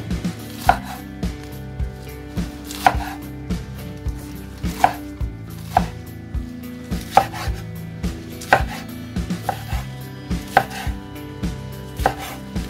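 Chef's knife chopping fresh spinach leaves on a wooden cutting board: the blade knocks on the board about twice a second in an uneven rhythm.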